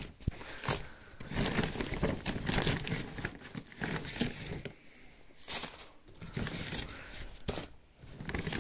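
Dry, papery husks of fresh ears of corn rustling and tearing as they are peeled back by hand, in several bursts with short pauses between them.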